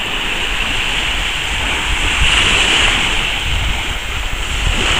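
Sea surf washing steadily onto a beach, with wind buffeting the microphone in low rumbling gusts, strongest in the second half.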